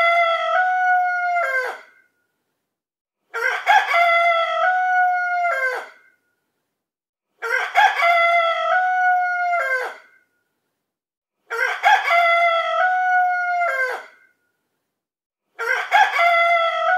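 Rooster alarm: the same recorded cock-a-doodle-doo crow looped about every four seconds, each crow about two and a half seconds long, ending in a falling note, with silence between. It signals that the timer has run out.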